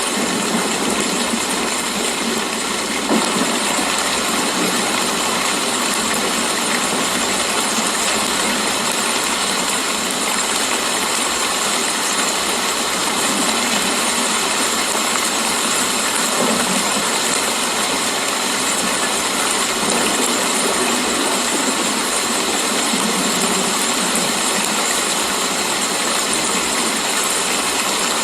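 Steady, heavy rain falling as an even hiss, with one brief tap about three seconds in.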